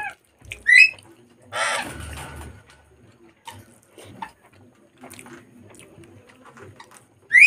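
A chicken calling: a short rising squawk about a second in, a longer call around two seconds, and another squawk at the very end. In between there are soft clicks and smacks of eating rice by hand.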